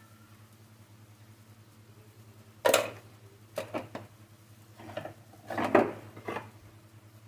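Kitchenware clattering: half a dozen sharp knocks and clinks of dishes or utensils being handled, loudest about two and a half seconds in and again near six seconds, over a low steady hum.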